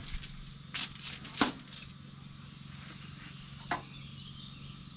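Three short knocks and scrapes from handling and seasoning a raw ribeye steak, the loudest about one and a half seconds in, over a low steady hum.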